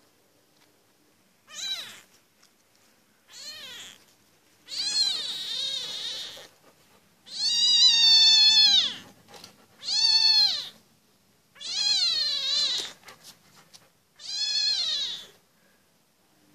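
A very young kitten mewing repeatedly: seven high-pitched calls, each rising and then falling in pitch, two of them long, the loudest about eight seconds in.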